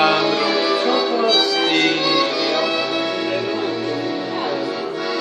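Violin playing a Hungarian song melody, its notes wavering with vibrato, between the singer's lines.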